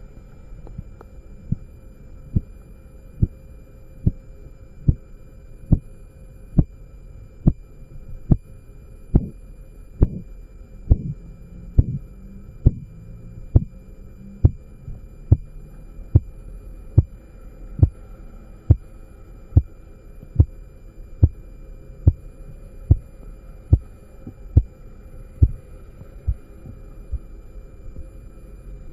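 Korotkoff sounds heard through a stethoscope as a blood pressure cuff deflates: regular low taps with the pulse, about 70 a minute, over a faint steady hum. The taps start faint about a second in, are strong for most of the stretch, then weaken near the end. The first tap marks the systolic pressure and the last, faintest one the diastolic.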